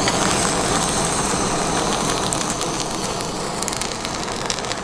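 Handheld butane blowtorch hissing steadily as it sears salmon nigiri, with the fish crackling and popping in the flame over the second half.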